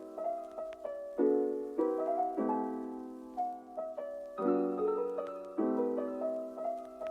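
Soft background music on a piano or electric piano, gentle chords struck in a slow, even rhythm.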